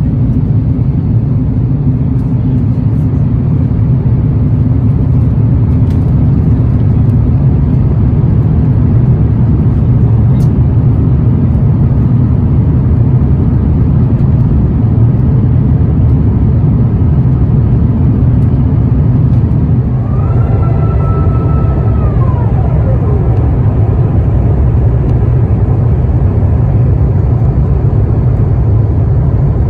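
Steady, loud cabin noise inside an Airbus A350-900 during descent, a deep rumble of airflow and engines. About twenty seconds in, a mechanical whine rises, holds for a couple of seconds, then falls away in pitch.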